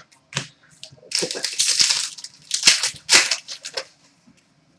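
Trading cards and their packaging being handled: a run of rustling, scraping noise starting about a second in, followed by three shorter scrapes and a few small clicks.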